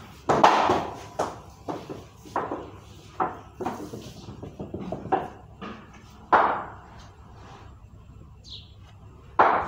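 Backyard cricket: a ball knocked by a wooden bat and bouncing on a hard tiled floor. There are three loud sharp knocks, with a string of lighter bounces between the first two.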